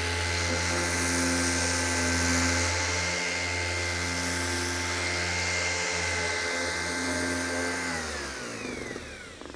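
Electric random orbital sander running steadily as its pad sands across a wooden door panel, with a steady motor whine. About eight seconds in it is switched off and the whine falls in pitch as the motor spins down.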